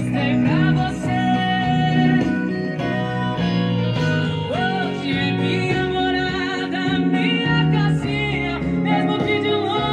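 Music: a song with a singing voice over plucked guitar and a steady bass line.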